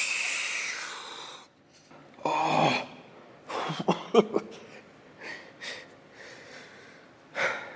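A man breathing hard and groaning in exhaustion straight after a maximum-repetition set of bench press: a long forceful exhale at the start, then several shorter gasps and grunts and softer panting breaths.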